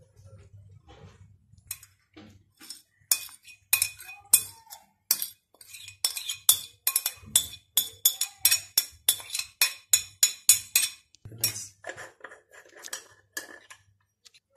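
Metal spoon clinking and scraping against a ceramic plate: a quick run of sharp, ringing taps, about three or four a second, loudest through the middle.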